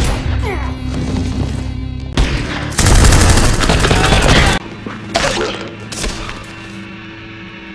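Gunfire: a few single shots, then a dense volley of rapid shots lasting about a second and a half, then two more single shots, over a tense music score.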